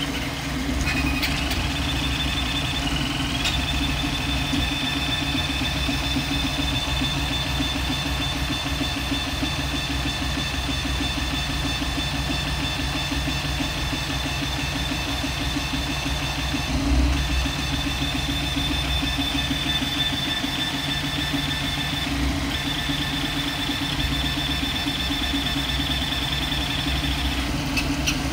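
VzBoT 330 3D printer running a print: a steady whir of its fans and CPAP cooling blower with a low hum underneath, and a thin high whine that breaks off and shifts briefly a few times as the toolhead moves.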